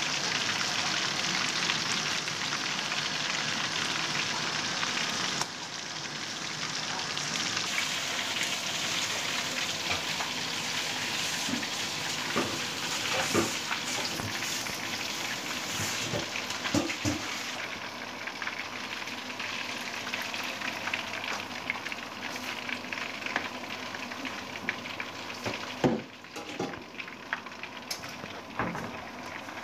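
Masala-coated hamour fish frying in hot ghee in a steel wok, a steady dense sizzle with fine crackling. Now and then a metal spatula clicks against the wok, mostly in the middle, and the sizzle drops in level abruptly twice.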